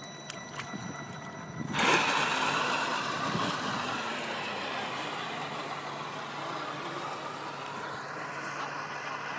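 A radio-controlled speedboat sets off suddenly about two seconds in. Its motor and the rush of water against the hull are loud at first, then fade as it speeds away across the water.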